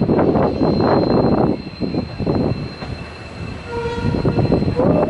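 Passenger train rolling, with wheels and coaches clattering loudly for the first second and a half and then easing off. Near the end come a few held tones, one of them rising in pitch.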